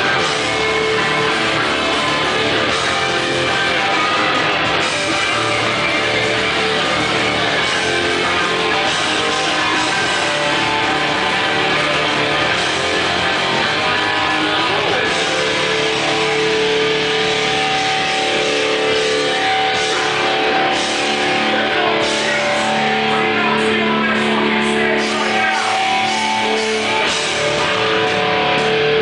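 Hardcore punk band playing live, loud distorted electric guitars over bass and drums, with held guitar notes ringing in the second half.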